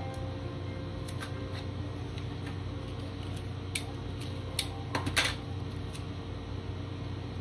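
Light clicks and taps from a clear round plastic piece and paper being handled on a tabletop, with a quick cluster of louder clicks about five seconds in, over a steady low hum.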